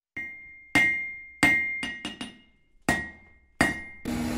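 Hammer striking an anvil: about eight clanging blows at an uneven pace, each with a short high metallic ring.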